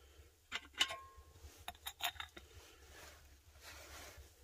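Metal teapot lid clinking and rattling several times as it is handled, one clink ringing briefly; a soft hiss comes up near the end.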